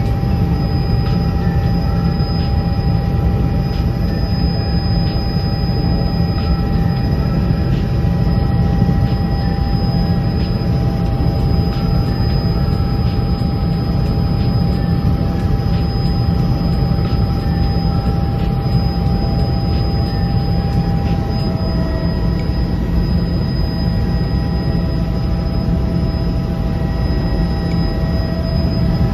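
Helicopter cabin noise in flight: a loud, steady low rumble of engine and rotor with several constant whining tones above it.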